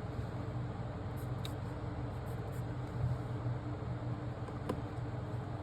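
Steady low electrical hum with a hiss of background noise, and a few faint ticks.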